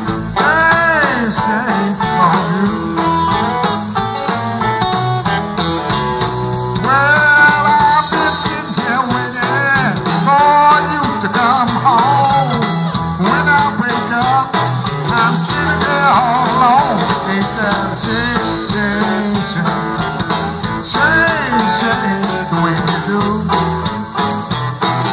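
Live blues band playing, with electric guitars, bass, drums and keyboard. The lead lines bend up and down in pitch.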